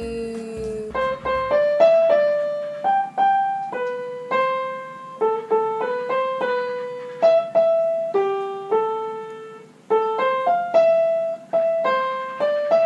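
A simple melody played on a piano, mostly one note at a time, each note struck and left to fade, with a short break about ten seconds in.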